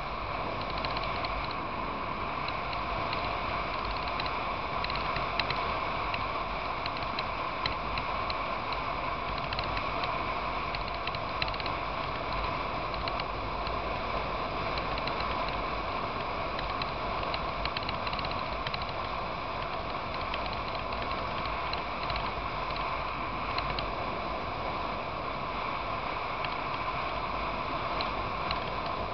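Motorcycle riding steadily at road speed, heard through a bike-mounted camera. A constant running drone carries a dense rattle of small ticks.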